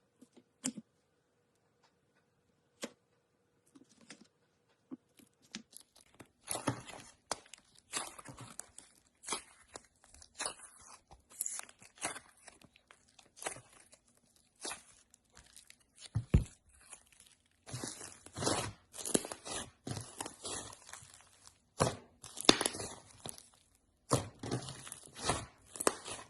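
Slime being worked by hand, crackling and crunching in quick irregular strokes. After a few isolated clicks, it starts in earnest about six seconds in.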